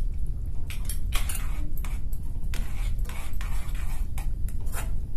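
Slotted steel spoon scraping and clinking against a metal kadai as a thick tomato masala gravy is stirred: a series of short scrapes and knocks at uneven intervals.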